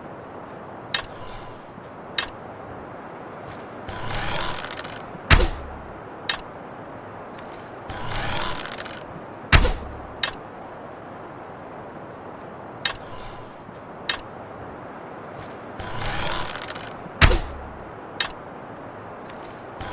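Bow-and-arrow sound effect played over and over: small clicks, a short rasping draw, then a loud sharp snap of the loose. The cycle runs about three times.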